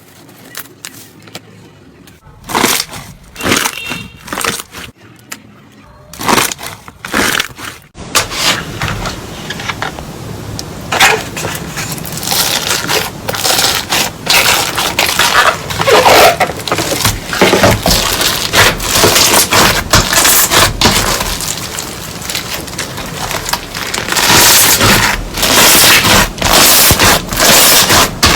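Crunchy slime being squeezed and pressed by hands, crackling and popping. After a quiet start come scattered crackles, then from about eight seconds in a dense, continuous crackle.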